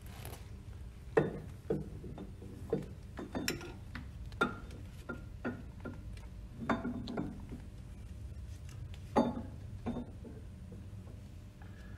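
Metal parts at the shaft and split coupling of a Grundfos NBS pump knocking and clinking as they are handled and fitted by hand: irregular light clicks and knocks, the loudest about a second in and again about nine seconds in.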